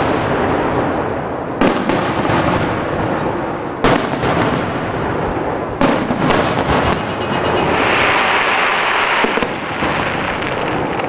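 Aerial fireworks shells bursting: about five sharp booms, each trailing a long rolling echo. A stretch of dense crackling runs through the second half.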